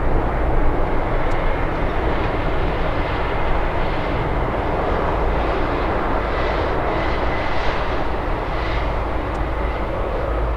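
Boeing 777's twin GE90 turbofans at takeoff thrust as the jet climbs away: a steady, dense jet noise with a heavy low rumble, easing slightly near the end.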